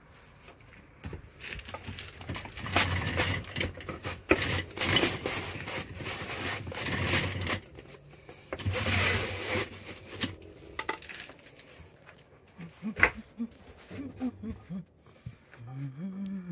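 An RV roller shade being handled and pulled: scraping and rattling of the shade fabric and its bottom rail, with repeated clicks, in two long bouts, followed by scattered clicks.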